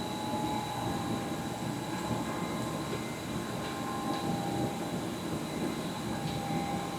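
A steady mechanical hum with a few thin steady whining tones over it, from a machine running in the background.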